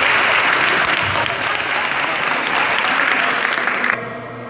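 Spectators applauding in a large hall, a dense clatter of many hands clapping that stops abruptly about four seconds in.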